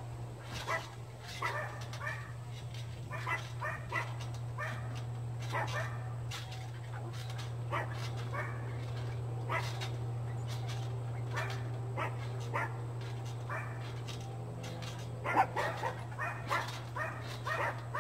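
A dog barking and yipping in short, irregular bursts, louder for a few barks near the end, over a steady low hum.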